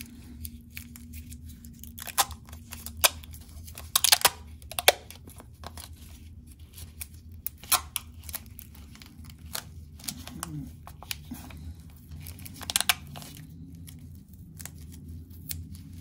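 Thin plastic wrapper crinkling and tearing as it is peeled off a stick of epoxy putty, in irregular sharp crackles, the loudest about four to five seconds in and again near the end.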